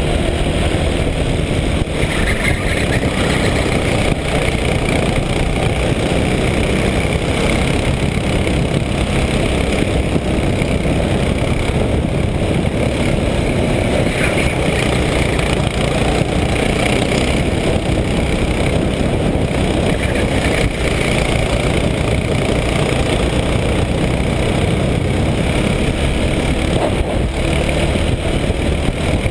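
Racing kart's engine running continuously at race speed, heard from on board the kart, with a dense rush of wind and road noise.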